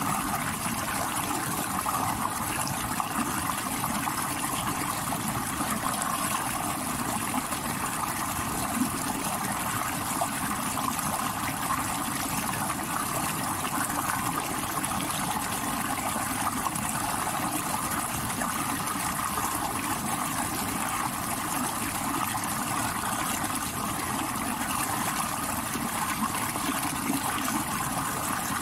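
Stream water rushing and splashing over rocks, an even, unbroken noise.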